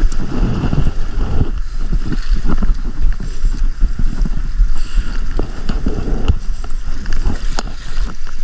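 Wind buffeting the microphone at the seashore, an uneven low rumble, with a few sharp clicks.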